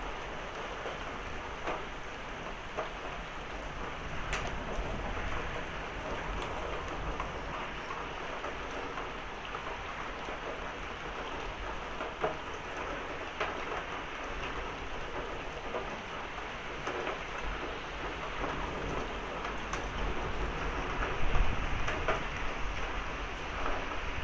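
Heavy thunderstorm rain pouring steadily, with scattered drops ticking sharply on nearby surfaces. A low rumble of thunder swells near the end.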